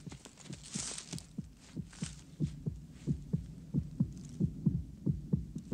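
Heartbeat sound effect: deep paired thumps, lub-dub, about one and a half beats a second, growing louder over the first couple of seconds, over a faint low hum.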